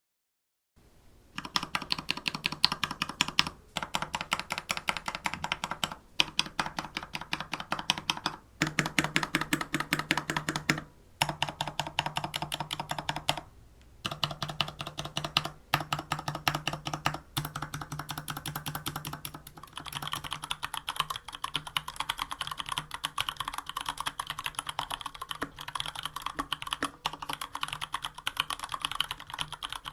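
Typing on a Varmilo VA104M full-size mechanical keyboard with unlubed Cherry MX Brown switches and dye-subbed PBT keycaps: rapid keystrokes in runs of a few seconds with brief pauses between them, then steadier continuous typing through the second half.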